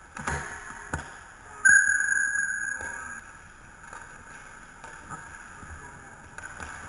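Inline hockey play at the net: two sharp clacks of stick and puck in the first second, then a loud, steady high whistle blast lasting about a second and a half, a referee's whistle, over the low rumble of skate wheels on the rink floor.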